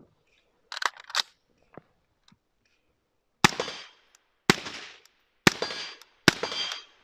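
Metallic clacks of a magazine being seated and the AR-15 charged, then four suppressed AR-15 shots fired about a second apart. The rifle is running heavily overgassed, with its adjustable gas block fully open under the suppressor.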